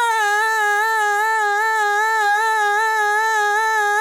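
A single sung note held steady, made by repeating a short split slice of a recorded vocal, so one pitch sounds with a slight regular waver.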